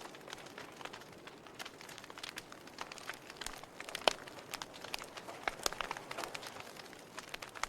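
Fire crackling in a fireplace: irregular sharp pops and snaps over a steady hiss, with one louder pop about four seconds in.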